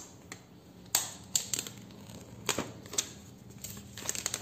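Plastic shrink-wrap seal on a phone box being cut and peeled off: irregular sharp clicks and crinkles of the thin film, with the cardboard box being handled.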